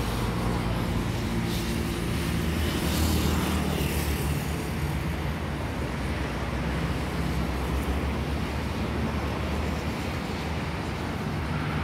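Road traffic: a vehicle passes about three seconds in, over the steady low hum of an idling engine.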